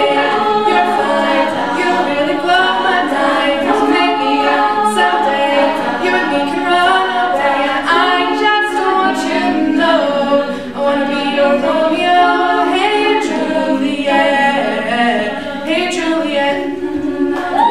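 Girls' a cappella group singing in multi-part harmony: a lead voice over sung backing chords, with no instruments.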